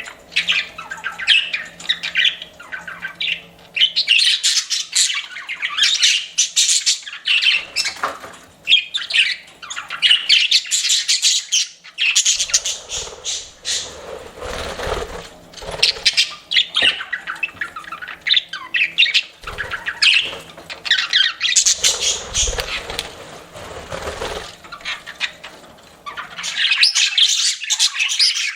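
Pet budgerigars chirping and chattering in a rapid, continuous jumble of high chirps and squawks. Twice a lower rustling noise sits under the chirping.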